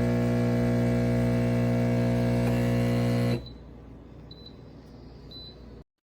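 Espresso machine pump buzzing steadily with a loud hum, stopping suddenly about three and a half seconds in; faint room noise follows.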